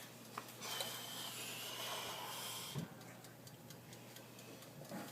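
A child's heavy breath, one hissing breath of about two seconds with a faint whistle in it, starting about half a second in. Faint scattered clicks sound around it.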